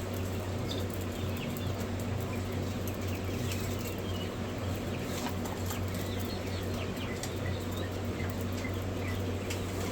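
Many chicks peeping in short, high chirps, with scattered clicks and rustling, over a steady low hum.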